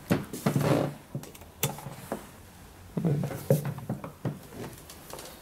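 A few irregular soft knocks and clicks, handling noise from a handheld camera being moved about.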